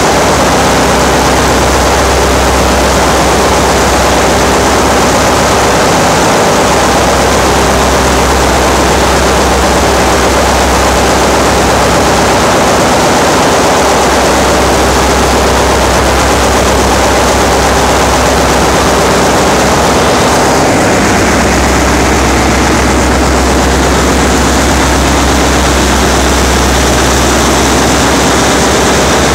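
Loud, steady machinery noise of a ship's engine room, a dense din with a strong deep hum underneath.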